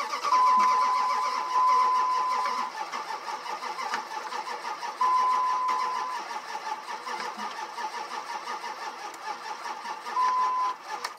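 2003 Dodge Ram's 5.9 Magnum V8 cranking on the starter without catching; the owner thinks it sounds like the ignition timing is off. A steady beep tone comes and goes over the cranking.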